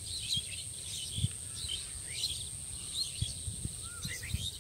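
Pondside ambience: a steady high-pitched insect drone with scattered short bird chirps, over irregular low thuds.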